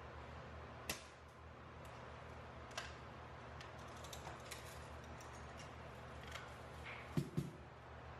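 Faint sharp clicks from a lever-action shooting-gallery rifle being fired and its lever worked, a few seconds apart, with two heavier knocks in quick succession near the end.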